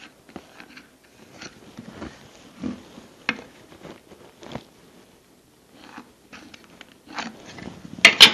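Pencil scratching short marking lines across the end grain of a firewood log, with the plastic center finder shifting and clicking against the wood. Near the end, a few sharp knocks as the log and the center finder are set down on the wooden workbench.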